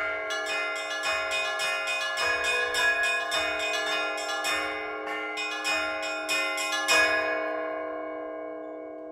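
Orthodox church bells rung by hand in a quick run of strikes on the small bells over the deeper bells ringing on underneath. A loud last stroke comes about seven seconds in, and then the bells ring out and fade.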